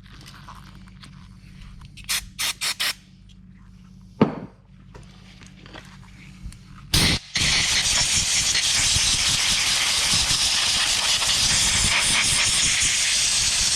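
Compressed-air blow gun blowing out carburetor parts: four quick short blasts about two seconds in, a knock, then one long steady hiss of air for about seven seconds.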